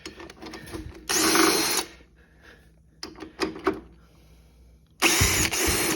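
Two short bursts of a power tool running, about a second in and near the end, spinning out the brake caliper bolts on a motorcycle's front fork. Light metallic clicks and knocks come in between.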